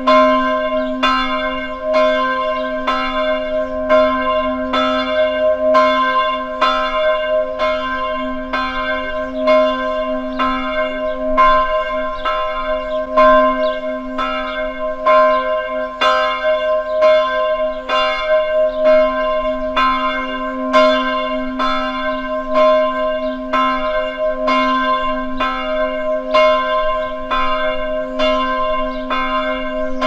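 Church bell ringing in a steady, even rhythm of strokes, about two a second, its hum ringing on unbroken between strikes.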